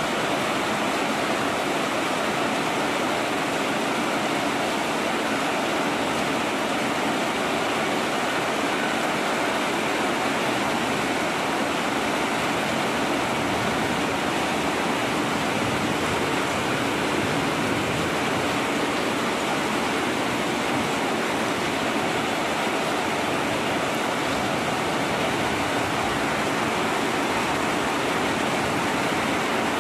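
Heavy tropical rain falling steadily, a dense even hiss, with water streaming off the edge of a metal roof awning.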